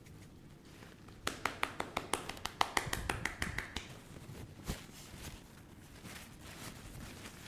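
A quick run of a dozen or more sharp cracking pops over about two and a half seconds, joints popping under a chiropractic spinal adjustment. One more single pop comes about a second later.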